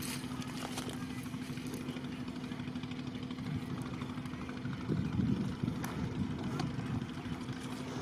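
A small engine drones steadily, with a low rumble that grows louder and rougher about five seconds in.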